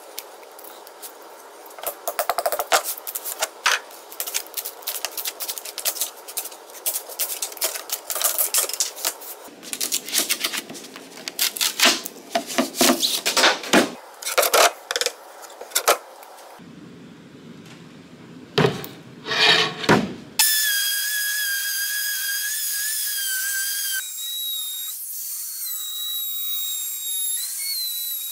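Clicks and scrapes of hands handling a plastic casting mold, with a few louder knocks, then a DeWalt compact router starting up about two-thirds of the way in with a high steady whine, its tone shifting a little as it trims the edge of a cast epoxy disc.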